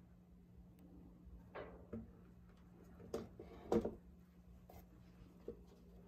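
Light knocks and scrapes of a gessoed art panel being tilted and shifted on its supports by gloved hands. The loudest is a quick double knock a little before four seconds in, over a steady low hum.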